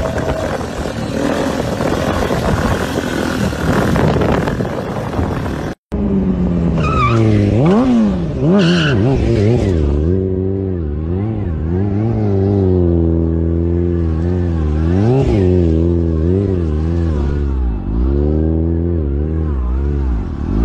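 Motorcycle engine sound during wheelie stunts. For the first six seconds it is a rough, noisy rush without a clear pitch. After a sudden cut, a motorcycle engine revs up and down over and over, its pitch rising and falling as the throttle is worked to hold the wheelie.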